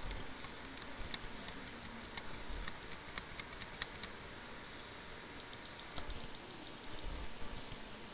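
Light, irregular clicking of a computer mouse scrolling a document, several clicks a second at first and sparser after about four seconds, with a couple of soft thumps about six and seven seconds in.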